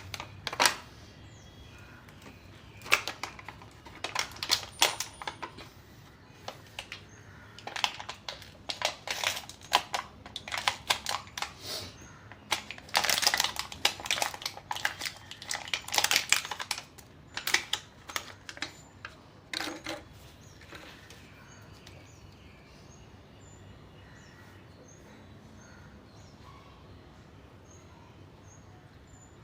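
Irregular clicks and clatter of small parts and tools being handled during a motorcycle oil-filter change, going on for about twenty seconds before stopping. Faint high bird chirps follow.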